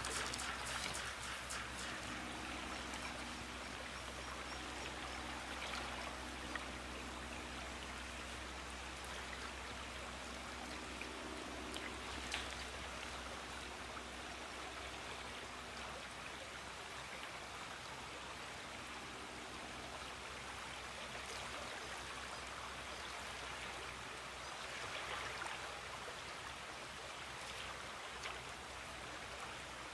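Shallow river flowing steadily over riffles: a continuous rush of running water, with a couple of faint ticks.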